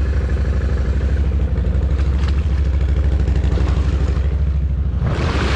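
BRP Outlander 1000's V-twin engine idling steadily, with an even low pulse, while the quad sits stuck in the bog. Near the end a short rush of noise rises over it.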